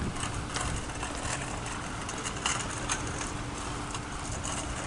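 Storm wind rumbling and buffeting on the camera's microphone over street noise, with scattered light clicks and a faint steady hum.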